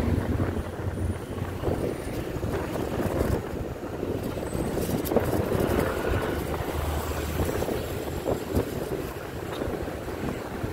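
Wind rushing over the microphone from a moving vehicle, with road and engine noise and passing traffic underneath.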